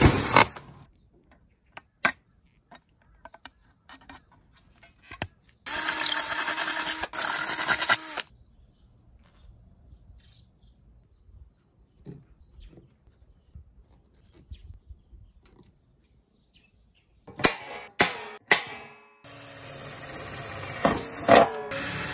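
Makita cordless drill boring holes through thin stainless steel, in bursts: briefly at the start, for about two seconds around six seconds in, and again over the last three seconds, with the bit grinding and squealing in the metal. Between the bursts come scattered metal clinks and handling taps.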